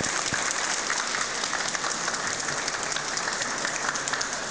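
Audience applauding, a dense patter of many hands clapping that thins slightly near the end.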